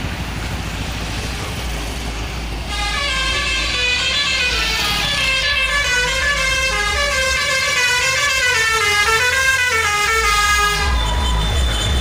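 Tourist bus's multi-tone musical air horn playing a quick stepping melody of many notes, starting about three seconds in and stopping near the end, over a steady low rumble of engine and road.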